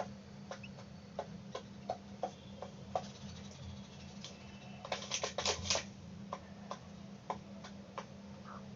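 Hen pecking at rice grains: irregular sharp taps of the beak, with a quick flurry of pecks about five seconds in.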